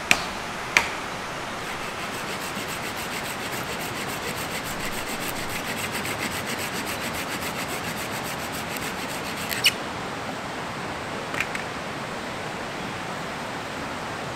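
Wood being worked with a blade in quick, even rasping strokes, after a few sharp knocks at the start. A sharp snap comes near ten seconds, and after it a steady hiss.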